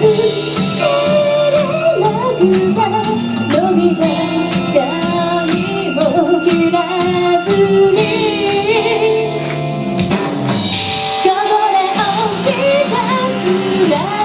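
Woman singing a song live into a microphone over instrumental backing. About ten seconds in the low accompaniment briefly drops out before coming back.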